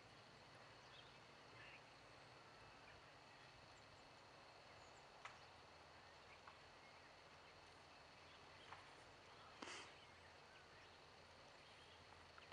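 Near silence: faint outdoor background hiss with a few scattered faint clicks and a short soft rustle about ten seconds in.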